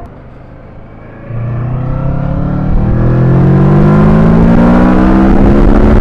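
Kawasaki Versys 650 parallel-twin motorcycle engine accelerating. After a quieter first second, the engine note comes in louder and rises steadily in pitch as the bike speeds up.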